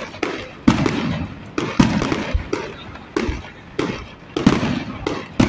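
Fireworks display: aerial shells bursting in an irregular string of loud bangs, nearly two a second, each trailing off with a short echo.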